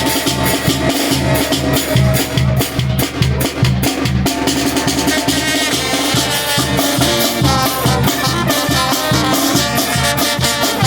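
Wind band (banda) playing a lively tune, with horns holding and changing notes over a steady, driving drum beat.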